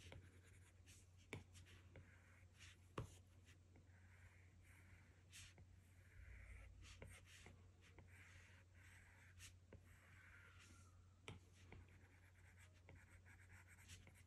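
Apple Pencil tip scratching faintly across an iPad Pro's glass screen in short drawing strokes, with a few sharp taps as the tip meets the glass.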